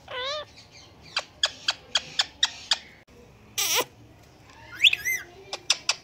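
Indian ringneck parakeet calling: a short wavering call, then a run of quick sharp chirps, one loud harsh screech about halfway through, and a rising warbled whistle followed by more quick chirps near the end.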